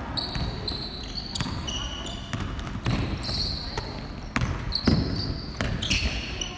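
Basketball shoes squeaking in short, high chirps on a hardwood gym floor, with a basketball bouncing and sharp thuds of play, the loudest about five seconds in.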